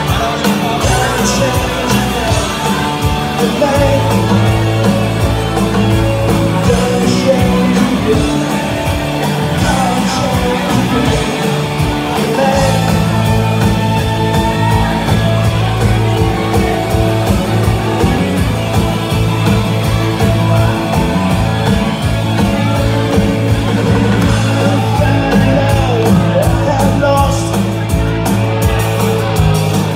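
Live rock band playing loud through a PA, with electric guitars, bass and a singer.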